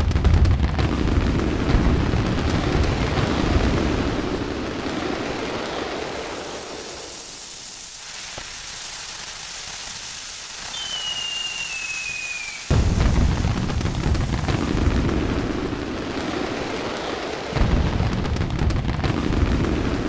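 Fireworks display: aerial shells bursting in a run of deep booms. It thins out for a few seconds in the middle, where a short whistle falls in pitch, then two sudden loud bursts break in, the second near the end.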